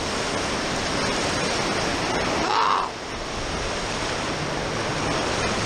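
Steady rush of splashing water around an inner tube sliding down a water slide, close to the camera.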